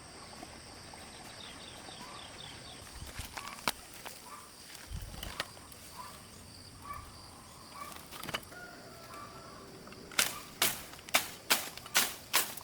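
Faint background noise with a few scattered clicks, then, about ten seconds in, a quick run of loud, sharp knocks, two or three a second.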